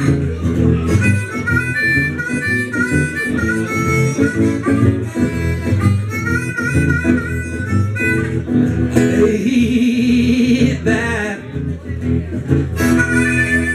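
Blues harmonica solo played through a microphone over a strummed acoustic guitar. The harmonica runs a line of held and sliding notes, with a wavering held note about ten seconds in.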